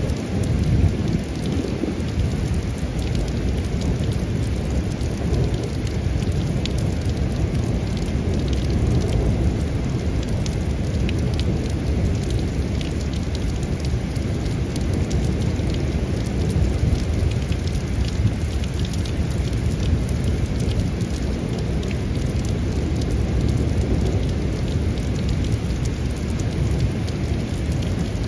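Steady heavy rain during a thunderstorm, with a low rolling rumble of thunder that swells and ebbs, and individual raindrops ticking close by.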